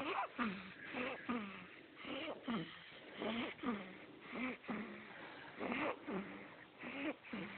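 Sleeping baby snoring: quick, squeaky, wheezy little breaths, about two a second.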